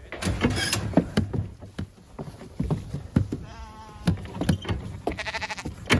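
Sheep bleating twice, the second call louder, amid repeated sharp knocks and clatters.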